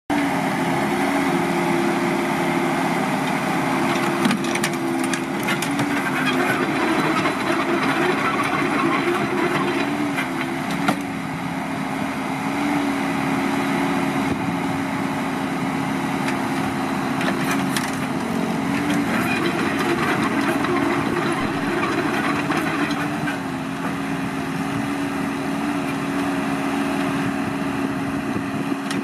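Kobelco SK045 mini excavator working, its engine running steadily under a whine that steps up and down in pitch as the arm and bucket move. A few sharp knocks come through, twice standing out.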